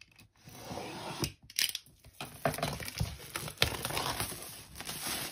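A snap-off utility knife slits the clear plastic shrink-wrap along the edge of a cardboard box. The film is then torn and peeled away, crinkling, with several sharp crackles.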